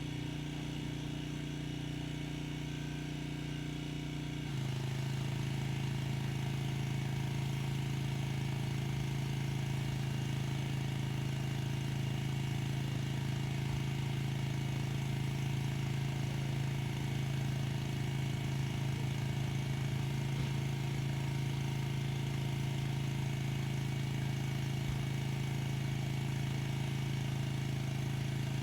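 Gas pressure washer engine running steadily. About four and a half seconds in it gets louder and settles at a slightly lower pitch, as the engine takes the pump's load once spraying starts.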